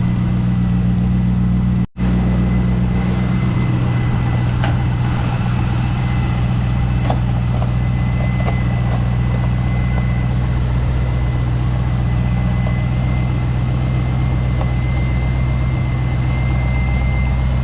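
The 2000 Corvette C5's LS1 5.7-litre V8 idles steadily, with a faint steady high whine. The sound cuts out for an instant about two seconds in.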